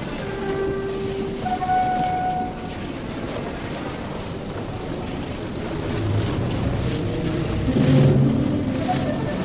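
Sea waves washing and rushing against a sailing ship's hull as it runs under sail, with wind. Two short held tones sound in the first couple of seconds, and the wash swells louder and deeper around eight seconds in.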